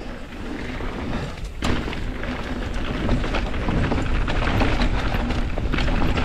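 Mountain bike riding down a dirt trail: wind rumbling on the microphone over tyre noise on the dirt, with the bike rattling in many short knocks over the ground.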